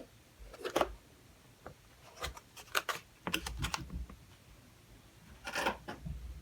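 Scattered clicks and clacks with a brief rustle, from handling a mechanical keyboard with metal and wood parts and its packaging as it is lifted out of the box.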